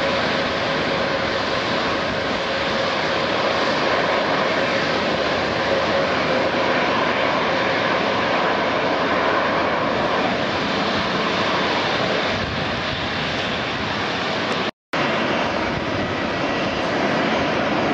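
Airliner jet engines running at takeoff power, a steady even rush, as an Airbus A320-family jet makes its runway takeoff roll. The sound drops out for a split second about 15 seconds in, then steady jet engine noise carries on.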